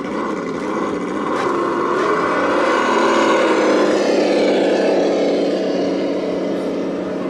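A motor or engine running at varying revs, its pitch wandering up and down and loudest about three to four seconds in.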